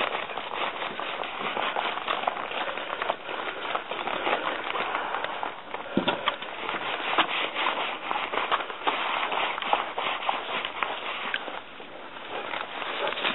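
A deck brush's stiff bristles scrubbing back and forth through a dog's thick, dry coat: a steady, crackly scratching.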